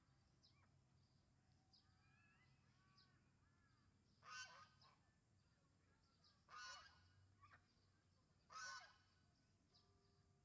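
A duck gives three loud harsh quacks about two seconds apart, over faint high peeping from ducklings in the first few seconds.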